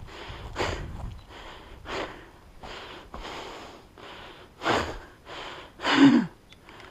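A person breathing hard close to the microphone: a run of short, noisy breaths in and out at an uneven pace, the loudest about two-thirds of the way through and near the end.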